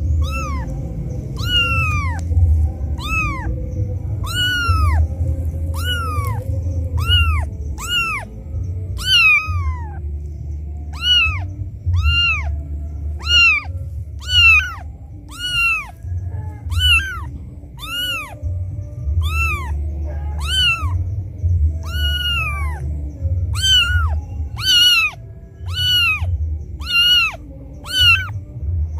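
Very young kitten crying for its mother: a long run of loud meows, a little more than one a second, each rising then falling in pitch. It is the distress call of a kitten left alone by its mother, over a steady low rumble.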